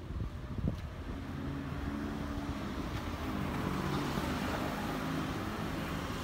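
A small car's engine and tyres on the street, growing louder over the first few seconds and then holding steady, with a single sharp click just under a second in.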